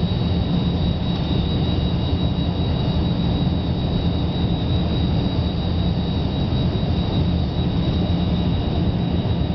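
Cabin noise of a Yak-40 airliner climbing just after lift-off: its three rear-mounted Ivchenko AI-25 turbofans at take-off power, a steady roar with a thin high whine over it.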